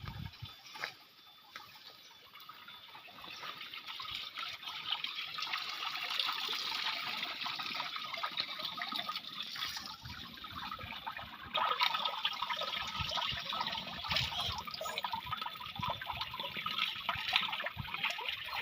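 Water running and trickling in a steady rush that grows louder over the first few seconds and steps up again about two-thirds of the way through.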